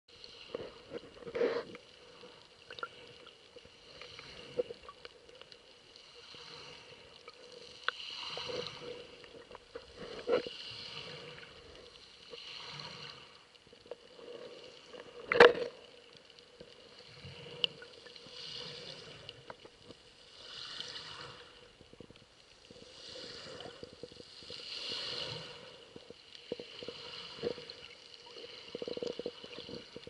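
Shallow sea water heard through an underwater camera: muffled water noise swelling and fading about every two seconds over a faint steady hum, with scattered clicks and one loud knock about halfway.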